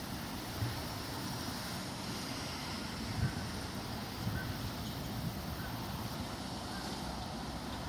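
Strong wind buffeting the microphone, a steady rumble with uneven gusts and a few soft thumps.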